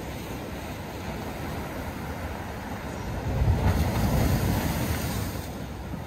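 Sea waves breaking and surging against concrete tetrapods, a steady rush with one louder swell about three and a half seconds in that dies back down.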